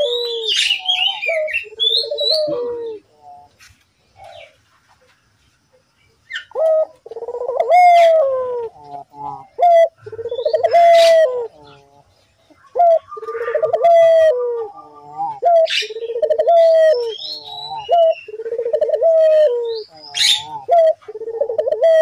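Collared dove (puter) cooing: a short note and then a longer rolling coo, repeated over and over. There is a pause of a few seconds about three seconds in. Sharp high chirps break in now and then.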